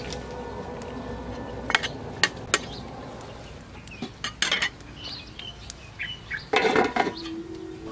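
A metal ladle clinking and scraping against a steel wok full of pig feet: three sharp clinks about two seconds in, then a short clatter, and a louder, longer clatter near the end.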